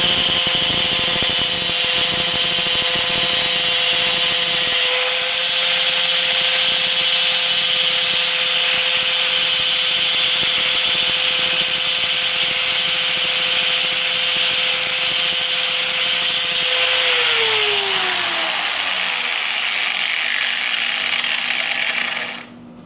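Handheld 4-inch angle grinder grinding the cutting edge of a steel lawn mower blade: a steady high motor whine with a harsh grinding rasp as the disc works along the edge. About three-quarters of the way through it is switched off, and its whine falls as it spins down. It stops near the end.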